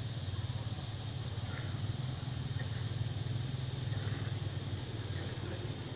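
A steady low motor hum, like an engine running nearby, holding level throughout, with a faint steady high buzz above it.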